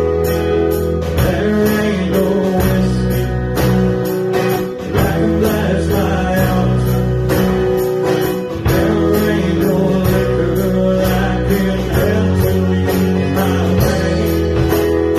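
A band playing a song live: strummed guitar, bass and drums with a regular beat, and singing.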